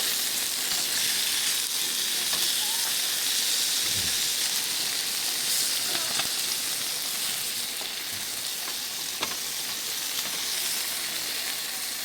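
Hamburger patties frying in a stainless steel camp pan, sizzling steadily, with a couple of light clicks near the end.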